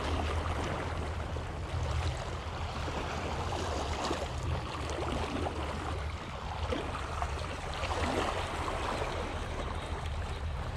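Small waves lapping and gurgling against a rock seawall, over a steady low rumble.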